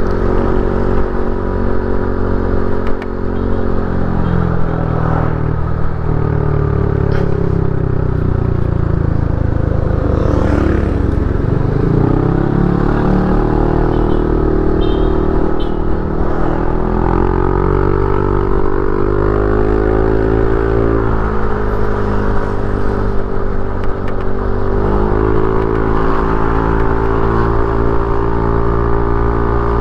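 Motorcycle engine running while riding, its pitch dipping and rising several times with throttle and gear changes, with a few light clicks and rattles.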